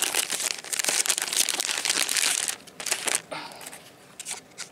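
Clear plastic bag crinkling as hands handle and open it: dense crackling for about two and a half seconds, then only a few faint rustles.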